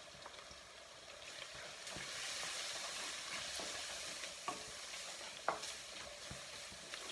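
Browned onions and freshly added ground spices frying in oil and ghee in a pan, sizzling as they are stirred. The sizzle grows louder about two seconds in, with two sharp knocks of the spatula against the pan later on.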